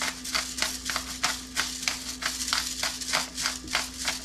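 Hand pepper grinder being twisted over a pan, giving a quick, even run of crunching grinds at about four a second.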